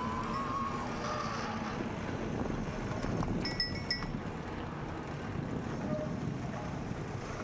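Wind and tyre noise from a bicycle ride, with a faint wavering whine in the first second or so. About three and a half seconds in comes a brief bell-like metallic ringing in three quick pulses.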